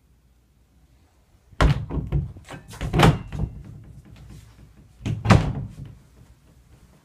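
Closet doors being shut: a cluster of thuds and knocks about a second and a half in, and a second cluster about five seconds in.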